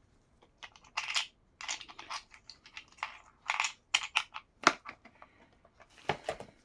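Irregular sharp plastic clicks and short scrapes as a rugged laptop is handled and its case and keys are pressed and worked.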